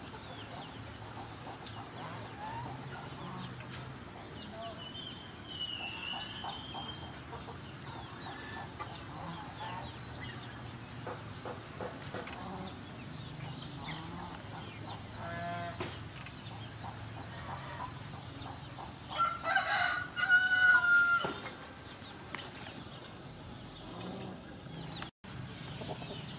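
Chickens clucking in the background, with a rooster crowing loudly once, about two-thirds of the way in.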